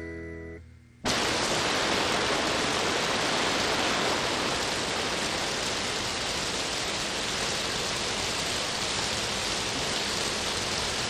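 A sustained musical chord dies away, then about a second in heavy rain starts suddenly and pours steadily as an even hiss.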